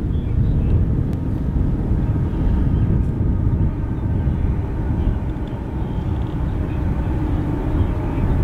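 Low, steady rumble of distant vehicles, with faint steady tones coming in over it from about six seconds in.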